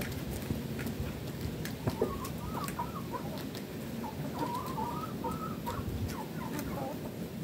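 Chickens clucking, a run of short calls through the middle, over a steady low background noise.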